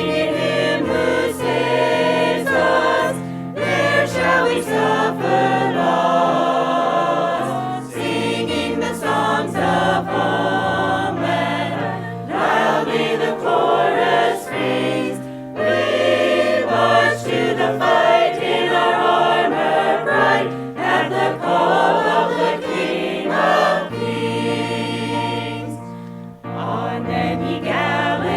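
A choir singing a hymn-like song over sustained low accompaniment notes.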